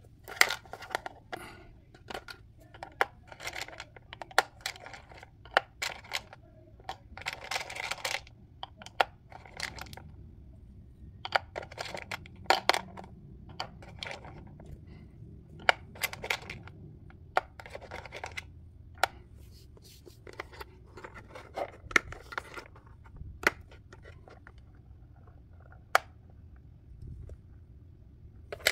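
Small plastic bowling pins of a tabletop toy bowling game being handled and stood up on the board: irregular plastic clicks and clatter, with a few short scraping stretches.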